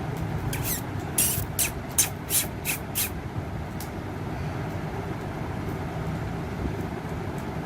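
A quick run of about seven short, harsh, high-pitched parrot screeches within a couple of seconds, over a steady low background rumble.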